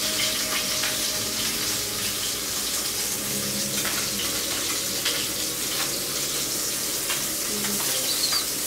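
Lamb chops searing in a hot pan, a steady oily sizzle.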